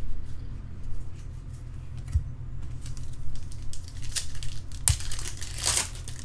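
Foil wrappers of baseball card packs crinkling and tearing as the packs are opened, in short scattered bursts, the longest near the end.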